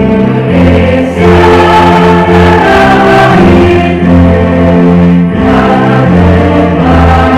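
Christian praise-and-worship song: several voices singing together over instrumental backing with a steady bass line.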